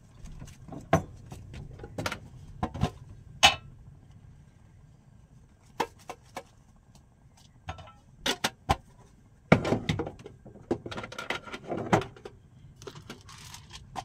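Scattered knocks, clicks and clinks of kitchen things being handled while making tea, with a busier stretch of rattling clatter about two-thirds of the way through, over a low steady rumble.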